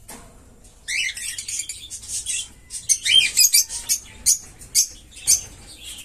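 Small caged pet parrots chirping: a string of short, high chirps and squeaky calls, a few sweeping quickly downward, with brief pauses between them.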